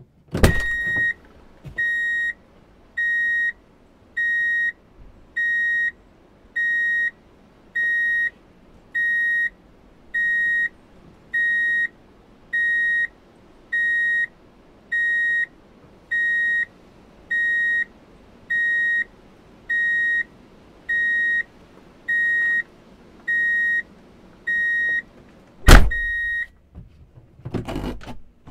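A vehicle's reverse-gear warning beep sounds about 20 times at a steady, even pace, each beep a high single tone. It signals that the vehicle is in reverse. A loud knock follows near the end, then a few more clunks.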